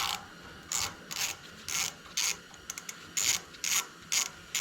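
Hand ratchet wrench clicking in short strokes, about two a second, backing out the bolts that hold a small engine's ignition coil.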